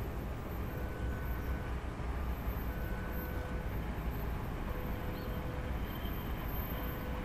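Diesel locomotive approaching at a distance with a train of tank wagons: a steady low engine rumble.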